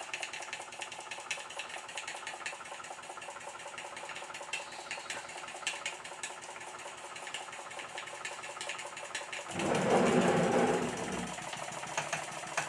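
Model 'Minnie'-type live-steam traction engine running under steam, its flywheel turning with a rapid, steady light mechanical clatter of fine ticks. About ten seconds in, a louder rushing sound lasts under two seconds.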